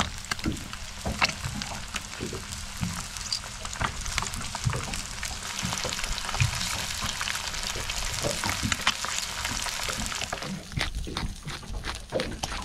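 Crumbed flathead fillets sizzling as they shallow-fry in hot oil in a frying pan, with occasional clicks of metal tongs turning them. The sizzling stops about ten seconds in, giving way to scattered knocks and clicks.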